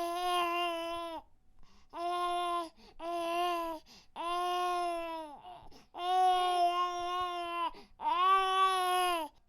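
A baby crying: a string of about six drawn-out wails, each a second or two long, held at a fairly steady pitch, with short breaths in between.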